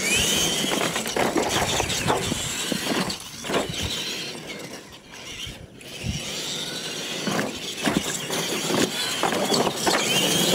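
Radio-controlled electric monster trucks racing on dirt: the motors and gears whine, rising in pitch as the trucks accelerate just after the start and again near the end, over a gritty noise of tyres on dirt.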